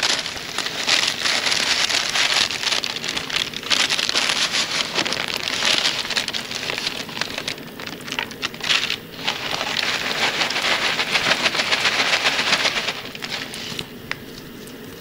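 Dried cabbage flakes poured and shaken into a plastic vacuum-sealer bag: a dense dry crackling rustle in several pours with short pauses, dying down about 13 seconds in.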